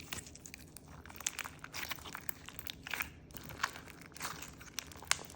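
Clear crunch slime packed with beads being squeezed and worked by hand, giving irregular crunching and crackling of the beads.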